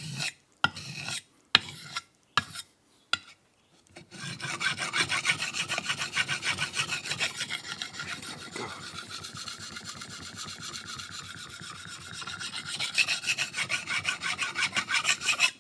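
Steel knife blade scraped back and forth on a fine Dia-Sharp diamond hone to refine and polish the edge. A few separate strokes come first, then about four seconds in a fast, steady run of rasping strokes that stops abruptly at the end.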